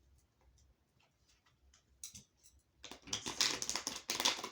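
A deck of tarot cards being shuffled by hand: a single click, then a dense run of rapid card clicks lasting about a second and a half.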